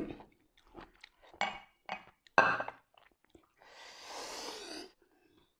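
Light clinks and short scraping sounds as a piece of octopus tentacle is dipped and stirred in a glass bowl of seafood dipping sauce. Near the end comes a breathy hiss lasting about a second.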